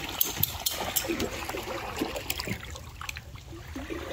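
Water trickling and lightly splashing around a canoe gliding through still swamp water, with small sharp clicks scattered throughout.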